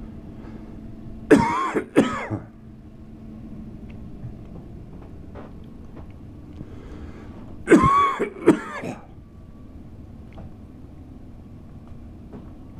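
A person coughing in two short bouts, each of two or three coughs, about a second in and again about eight seconds in.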